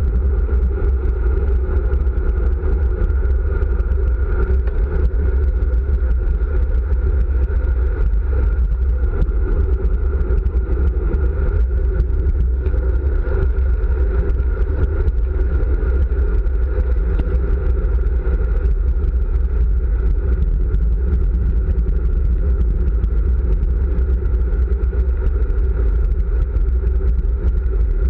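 Steady wind rush and tyre-on-asphalt rumble on a road bike descending at speed, picked up by a camera mounted on the handlebars; heaviest in the deep low end and unbroken throughout.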